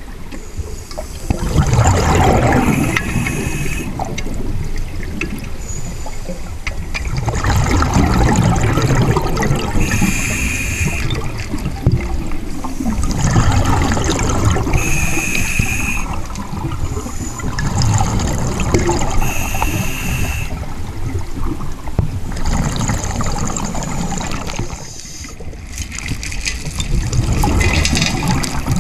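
Scuba breathing heard underwater: exhaled bubbles from a regulator rumbling and gurgling in irregular bursts, with a short hiss every few seconds.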